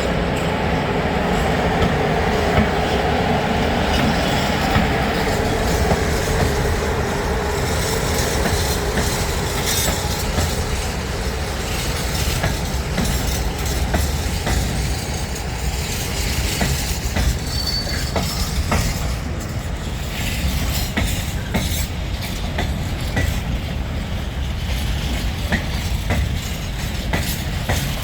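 Freight train of Eas open wagons rolling along the track, the wheels clicking over the rails throughout. A steady hum is heard in the first several seconds and then fades.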